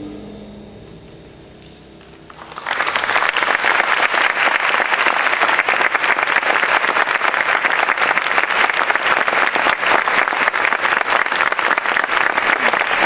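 The last held notes of a jazz ensemble fade out, then the audience starts applauding about two and a half seconds in and keeps on clapping steadily.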